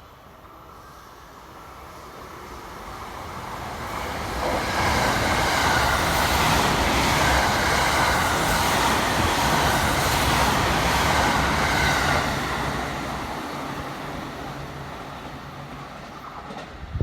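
Limited express Thunderbird electric train passing through a station at speed without stopping. The rumble of wheels on rail builds as it approaches, stays loud for about eight seconds while the cars go by, then fades away.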